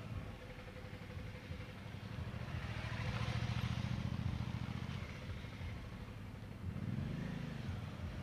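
Suzuki V-Strom's V-twin engine running at low revs through tight full-lock turns, getting louder as the bike passes close about three seconds in. Near the end the engine note rises and falls briefly.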